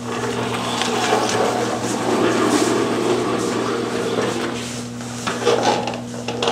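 Rubbing and scraping handling noise for a few seconds, then a few light knocks, over a steady low hum.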